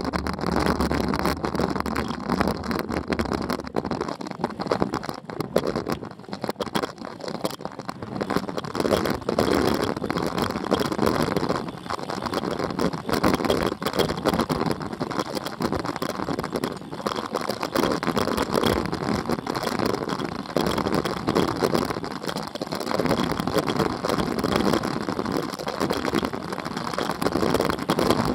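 Wind rushing and buffeting over a bike-mounted camera's microphone on a fast road-bike descent, mixed with tyre noise on rough, cracked asphalt. A steady rush that flutters up and down in level throughout.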